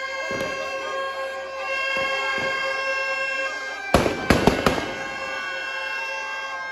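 Firecrackers packed in a burning Ravan effigy going off: a quick cluster of four or five sharp bangs about four seconds in, under music with long held notes that plays throughout.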